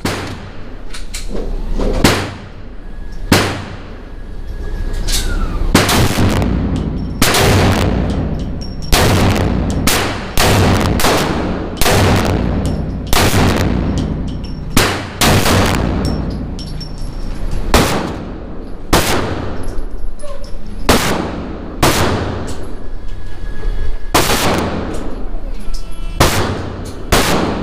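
Desert Eagle .50 AE pistol fired repeatedly at a steady pace, about twenty shots with roughly a second between them. Each loud shot has a long echoing tail.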